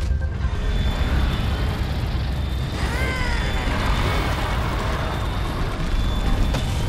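Cartoon soundtrack: background music over a heavy low rumble of sound effects, with a short cry that bends in pitch about three seconds in.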